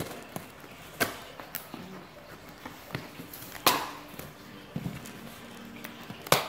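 Packing tape on a cardboard box being cut with a blade and the top flaps pulled open: rustling cardboard and tape, with three sharp cracks, the loudest a little past halfway.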